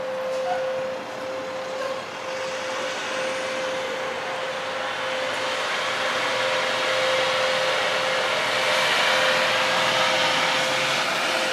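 A loud, continuous whooshing drone with a steady hum tone in it, sounding like a giant vacuum cleaner. Its hiss swells somewhat about halfway through.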